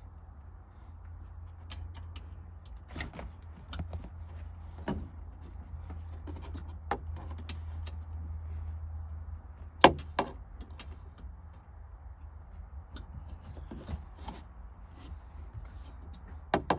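Scattered clicks and knocks from hand work on the Jeep's roll bar install, with a sharp knock about ten seconds in and two more near the end, over a steady low hum.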